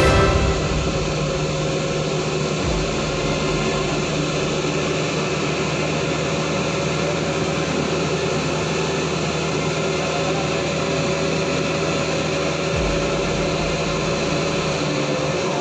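Farm tractor's diesel engine running steadily under load as it hauls a trailer full of oil palm fruit bunches up a steep dirt slope.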